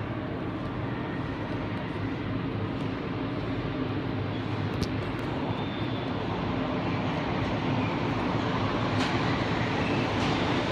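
Alstom NS-04 metro train approaching through the tunnel into the station: a steady rumble that grows slowly louder, with a couple of faint clicks.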